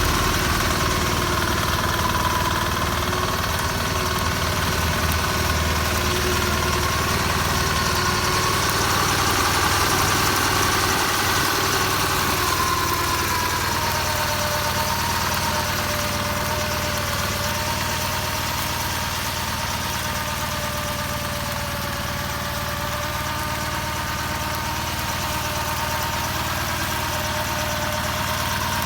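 Diesel engine of a Kawasaki BM91 rotary-disc grass mower running steadily, its pitch drifting slightly and dropping a little about halfway through.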